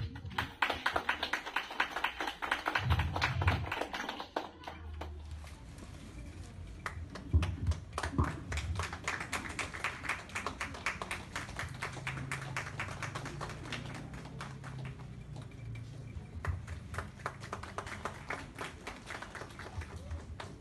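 Audience clapping, with voices underneath.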